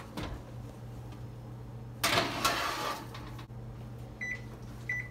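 Cake pan going into an electric range's oven and the oven door shutting, a clatter about two seconds in, then two short high beeps from the range's touchpad as its buttons are pressed near the end. A low steady hum runs underneath.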